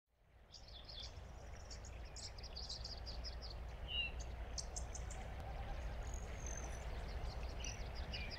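Outdoor nature ambience fading in: many small birds chirping, with short high chirps and a few whistled and falling calls, over a steady low rumble of wind.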